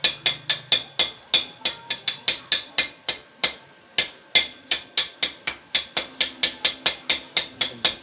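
Steel welding rod tapped again and again against a steel bar, about four to five sharp, ringing metallic clinks a second, with a short pause about three and a half seconds in.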